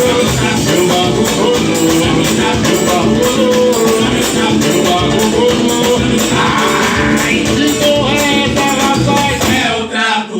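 Loud samba-style music with fast shaker percussion and some singing; the music drops away briefly near the end.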